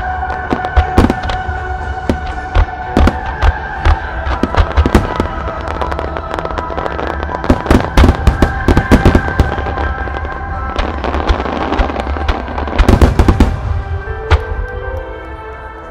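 Fireworks display: a rapid barrage of shell bursts and launch reports, densest about halfway through and again a few seconds before the end, then thinning out. It plays over music set to the show.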